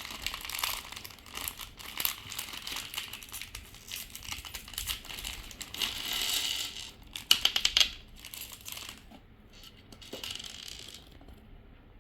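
Plastic packaging of a Blokees Transformers model kit crinkling and rustling as it is opened by hand, with a quick run of sharp clicks about seven seconds in. The rustling dies down over the last few seconds.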